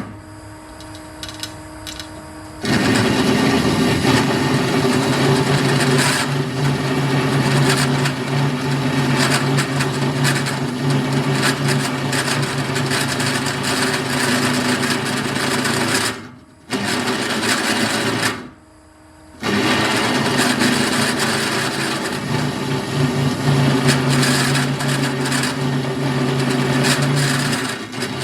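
Nova Viking drill press running an annular cutter through the steel upright of a squat rack: a steady motor hum for the first couple of seconds, then a loud cutting noise as the cutter bites. The noise cuts out briefly twice near the middle before resuming.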